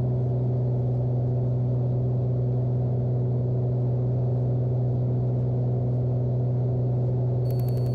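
Cessna 210's six-cylinder piston engine and propeller running steadily in flight, heard inside the cabin as a constant low hum.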